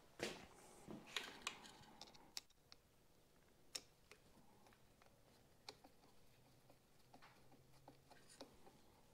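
Near silence broken by faint, scattered clicks and light taps as hands work a motorcycle carburetor and its clamp into position. There are several in the first couple of seconds, then single ones every second or two.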